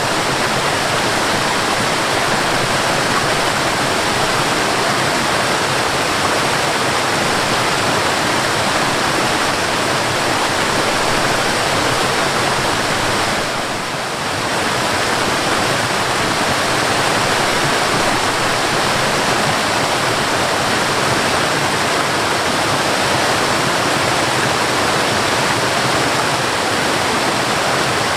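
Waterfall: a steady rush of falling water, dipping briefly in level about halfway through.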